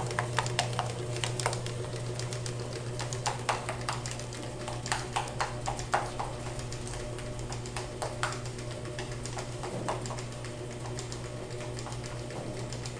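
Plastic spatula scraping and tapping against a small stainless-steel bowl as mashed ripe banana and cinnamon are stirred together, in irregular clicks, over a steady low hum.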